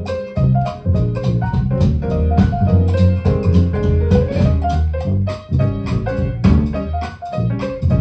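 A traditional jazz band plays: piano over a sousaphone bass line and a drum kit keeping a steady beat.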